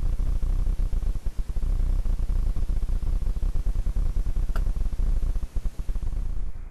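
Loud, steady, crackling low rumble of damaged audio from a rifle-scope camera's microphone, with no clear sound of its own. A faint single click comes about four and a half seconds in.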